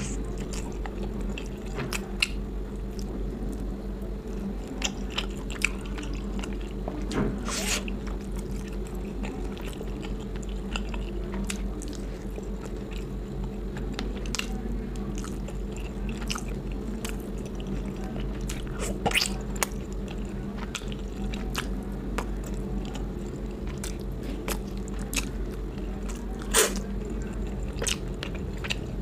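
A person chewing and biting food close to the microphone, with wet mouth sounds and scattered short sharp clicks, over a steady low hum.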